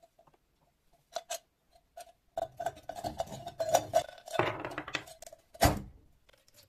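Rusty iron sheep bell clanking as it is handled: its clapper strikes a single dull ringing note, first a few separate strikes, then a busier stretch of clatter and rattling, and one sharp knock near the end.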